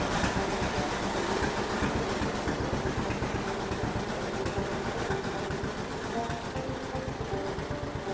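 A John Deere B's two-cylinder engine running with a rapid, uneven low beat.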